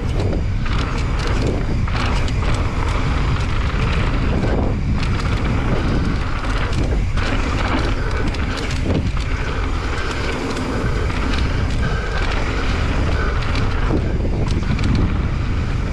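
Wind rushing over the microphone and mountain-bike tyres rolling fast over a dirt and gravel trail, a steady loud rush broken by scattered short knocks and rattles from bumps.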